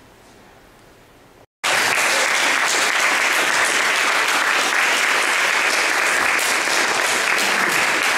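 Audience applauding: dense, steady clapping that cuts in abruptly about a second and a half in, after a short stretch of quiet room tone.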